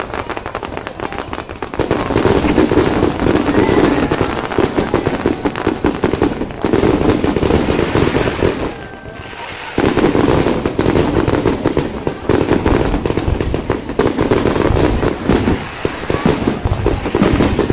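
Fireworks display going off in a rapid, continuous barrage of bangs and crackles, with a short lull about halfway through before the volley starts again.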